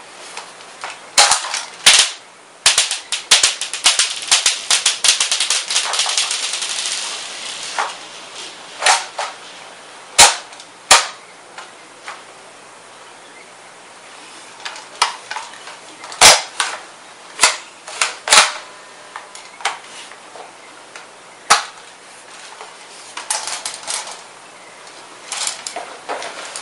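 Well R6E M4A1 airsoft electric gun (AEG) firing BBs: a rapid full-auto burst lasting about four seconds, then single shots a second or more apart, with a few short clusters near the end.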